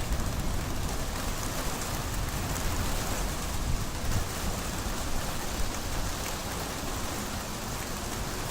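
Rain falling steadily during a thunderstorm, an even hiss with a low rumble underneath.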